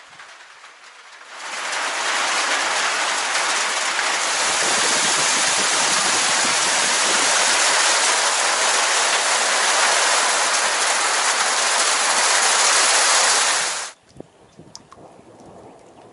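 Heavy rain pouring down, heard from under a veranda roof: a loud, even rush that starts suddenly about a second and a half in and cuts off abruptly near the end.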